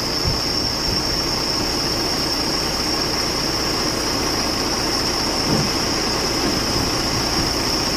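Truck engine idling steadily, with a steady high tone above the rumble.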